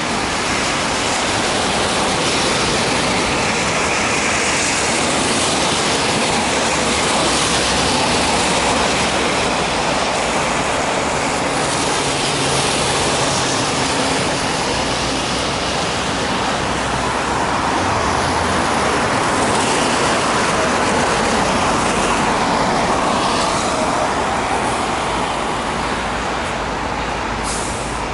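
City street traffic: a steady wash of road noise that swells and eases as vehicles pass.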